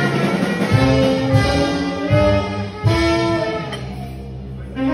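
Live band of saxophone and brass horns over drums playing a melodic tune with held horn notes, dying down briefly about four seconds in before a new phrase begins.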